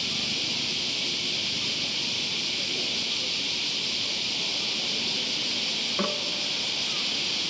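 A dense chorus of cicadas buzzing steadily in midsummer, with a single short click about six seconds in.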